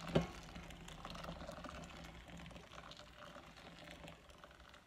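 Just-boiled water pouring from a stainless-steel kettle into a large bowl, a steady splashing pour that fades toward the end, with a single clunk just after it starts.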